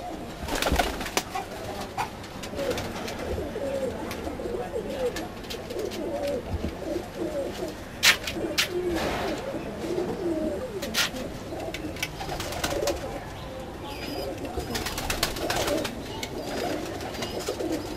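A flock of domestic pigeons cooing continuously, many wavering low calls overlapping, with a few sharp clicks scattered through.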